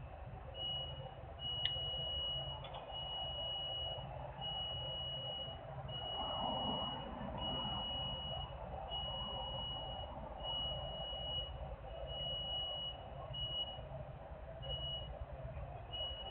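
A heavy vehicle's reversing alarm sounding over and over, a high beep about every second and a half, over a steady low rumble of machinery.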